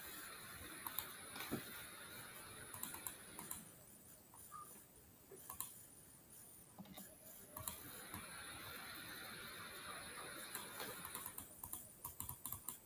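Faint, scattered clicks of a computer keyboard and mouse.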